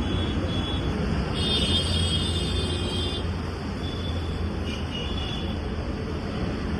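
Yamaha RX100's rebuilt two-stroke single-cylinder engine running steadily, with a louder, higher stretch about a second and a half in that lasts nearly two seconds.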